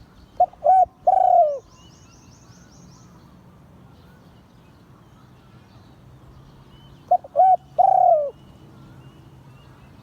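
Spotted dove cooing: two three-note phrases about six seconds apart, each two short notes and a longer final note that falls away at its end. Faint chirps of other birds in the background.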